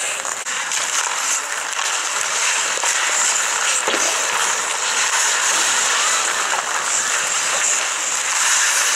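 Ice hockey skate blades scraping and hissing on the ice, with a single sharp knock about four seconds in.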